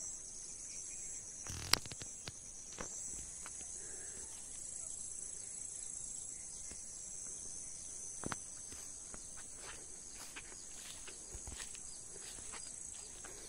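Steady, high-pitched chirring of insects such as crickets, with a few sharp clicks, the loudest about two seconds in and another about eight seconds in.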